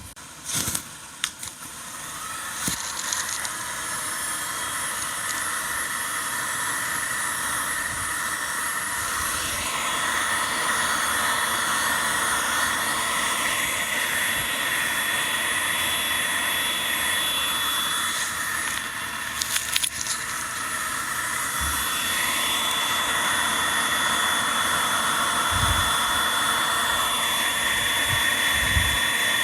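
A small electric blower motor running steadily with a high whine, starting up about two seconds in after a few knocks.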